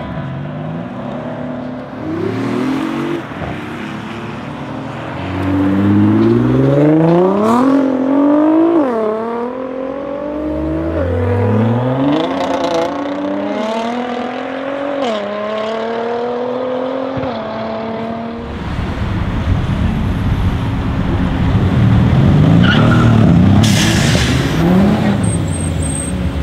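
High-performance car engines accelerating hard away. The engine note climbs and drops back through several quick gear changes, with tyre squeal. About two-thirds of the way in this gives way to a deep, rough exhaust rumble that swells as a car passes close by.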